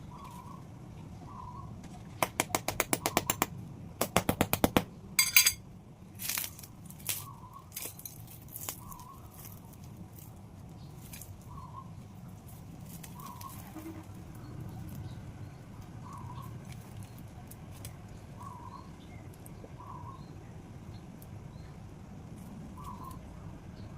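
Crisp crust of a shio pan (Japanese salt butter roll) crackling: two quick runs of small sharp crackles a few seconds in, then a handful of louder single cracks, fading out by about nine seconds in. Faint short chirps repeat every second and a half or so over a low steady hum.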